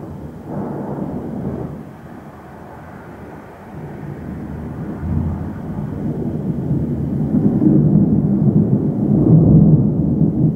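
Thunder rolling: a short rumble about half a second in, then a long rolling rumble that builds from about four seconds in and is loudest near the end.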